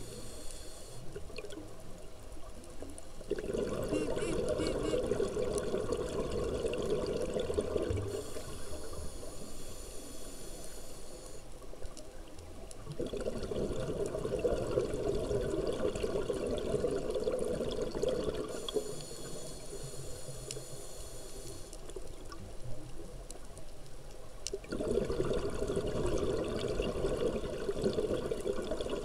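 Scuba diver's exhaled air bubbling out of the regulator underwater: three long bubbling rushes, about three seconds in, about thirteen seconds in and near the end, with quieter stretches between.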